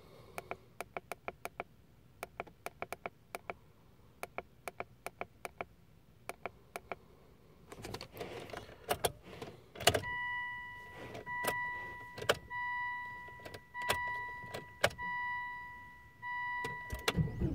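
A run of quick, sharp clicks for several seconds, then a repeating two-tone dashboard warning chime sounding in roughly one-second pulses. Near the end, the 2004 Volvo S60 D5's five-cylinder turbodiesel cranks and starts with a low rumble.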